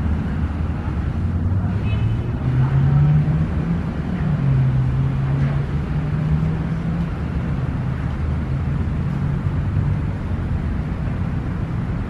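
Steady low rumble of road traffic, with engine drones that shift slowly in pitch.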